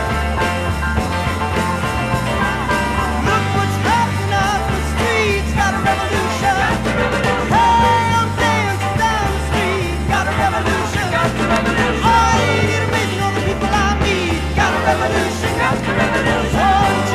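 Psychedelic rock band recording with bass and drums, joined by singing voices about four seconds in.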